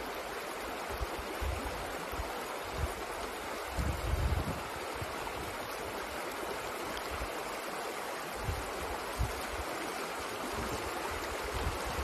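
Shallow stream running over rocks: a steady rush and babble of water. A few brief low thumps, the strongest about four seconds in.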